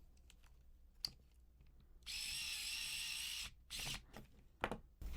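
A small handheld power driver runs for about a second and a half with a steady whine, driving a self-tapping screw into the kit's plastic parts, which have no threads of their own. A brief second spurt follows, with a few small clicks around it.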